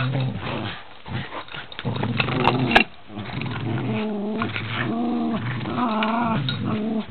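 Dogs play-growling during a tug-of-war game: a low, steady growl for the first few seconds, then a series of higher, wavering growls that rise and fall in pitch.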